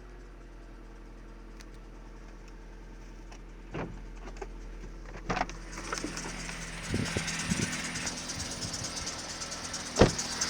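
Kia Cerato 1.6 engine running, heard close up at its accessory belt drive, whose tensioner pulley squeaks and creaks. The noise grows louder about halfway through, with a few sharp knocks.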